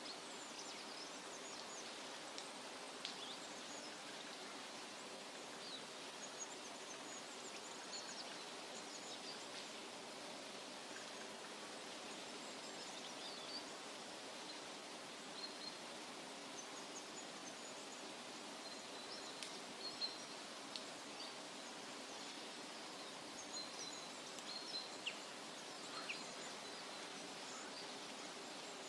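Forest nature ambience: a steady hiss of background noise with scattered short, high bird chirps throughout.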